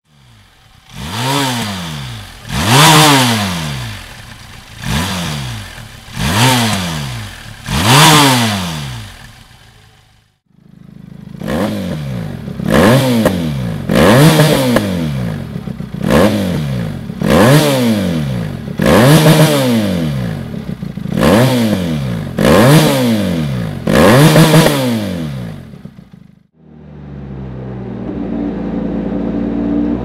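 Benelli TRK 502X's 500 cc parallel-twin engine revved repeatedly at standstill: quick throttle blips that rise and fall, five in a first run, then after a short break about nine more through a Dominator full exhaust system with HP1 silencer. After a cut near the end it idles steadily, then begins to climb in revs.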